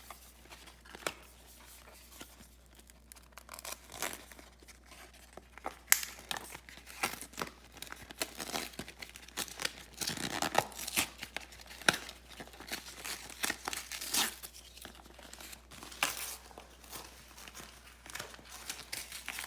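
Plastic toy wrappers being torn open and crinkled by hand, an irregular run of crackles and rustles with a louder tearing stretch about halfway through.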